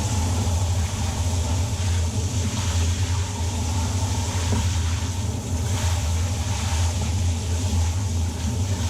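A motor running steadily with a low hum, over a steady hiss.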